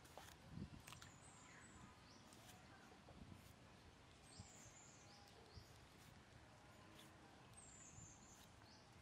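Near silence: faint outdoor background with short bird chirps now and then, in a few brief clusters, and a few soft ticks.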